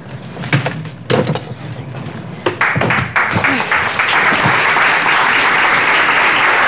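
Studio audience applauding, starting about two and a half seconds in and then holding steady, after some scattered knocks and low murmurs.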